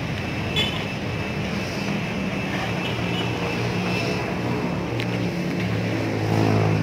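Street traffic: running vehicle engines and road noise, with one engine growing louder near the end as it comes close.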